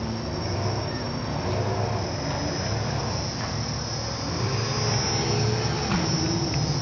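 Insects trilling steadily in a continuous high-pitched chorus, over a low steady hum.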